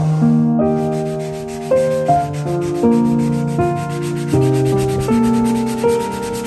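Slow piano music, with the quick, regular scratching strokes of a sanding block rubbed by hand on Angsana hardwood starting about half a second in.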